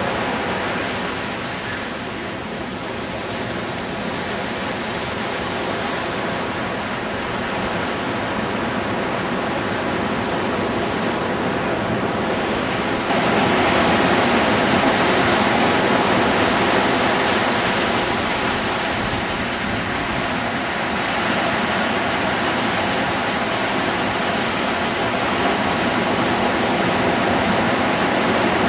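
Ocean surf breaking and washing up a sandy beach: a steady rushing noise that steps up louder about 13 seconds in.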